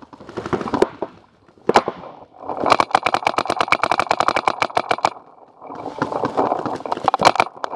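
Paintball markers firing: a couple of single shots, then a fast, even string of about ten shots a second for nearly three seconds, followed by more scattered shots.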